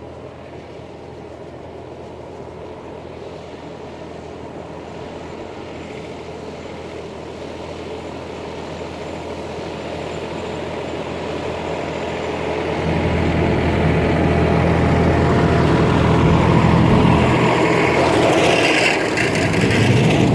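Tractor engine running with a John Deere 435 round baler working behind it, growing steadily louder and becoming loud about two-thirds of the way in.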